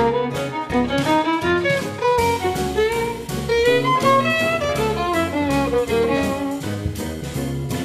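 Instrumental background music with a steady beat and a quick-moving melody.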